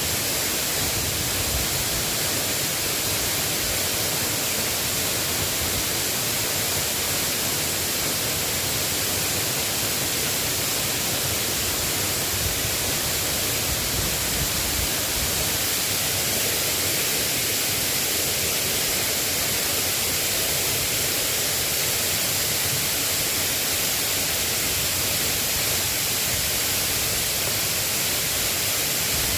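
Steady hiss of light rain falling, an even, unbroken wash of sound with no individual drops standing out.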